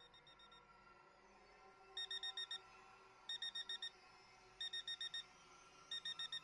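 Electronic alarm device beeping in repeated bursts of about five quick, high beeps, one burst every second and a bit. A faint burst at the start, then louder ones from about two seconds in. The beeping is the device's warning that someone or something has come near it.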